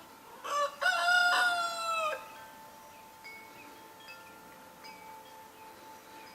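A rooster crowing once, about half a second in: a short opening then one long held note that falls slightly as it ends, lasting about a second and a half.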